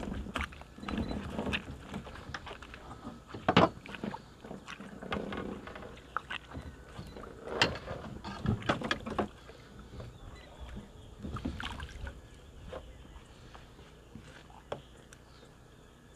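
Irregular knocks and clatter of things being handled in a small boat, a few sharper knocks standing out, dying down near the end.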